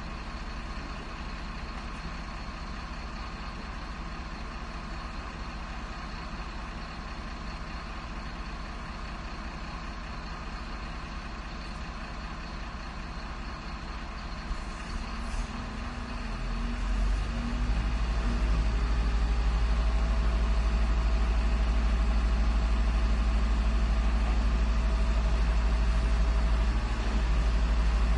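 Garbage truck engine running steadily at idle, then growing louder and heavier about two-thirds of the way through and holding at that higher, deeper level.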